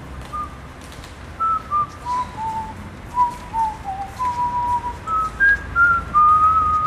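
A person whistling a tune: a run of short notes stepping up and down, ending on a long held note near the end.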